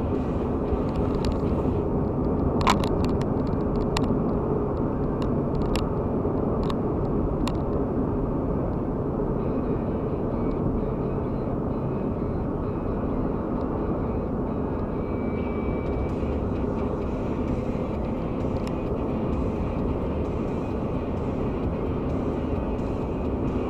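Steady road and engine noise of a car cruising on a concrete motorway, heard from inside the cabin, with a few light clicks in the first several seconds.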